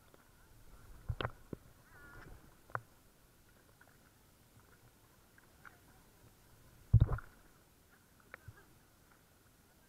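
Small waves slapping and sloshing against a camera bobbing at the sea surface, heard as scattered muffled knocks, the loudest about seven seconds in, over a faint steady tone.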